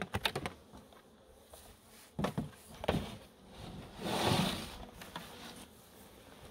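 Wooden beehive being opened and handled: a quick run of clicks and knocks, a few more knocks a couple of seconds later, then a longer scrape about four seconds in.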